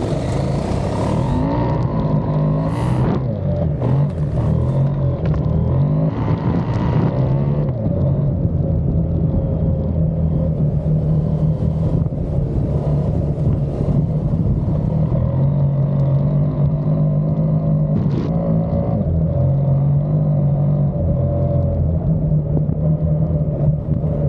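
KTM adventure motorcycle engine running under way on a gravel road, its note stepping up and down with throttle and gear changes, over wind and gravel noise that is heavier in the first several seconds.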